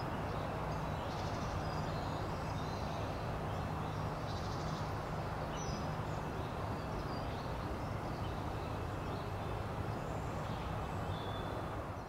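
Open-country field ambience: a steady background hiss with small birds chirping faintly and intermittently throughout, and a low steady hum through the first half.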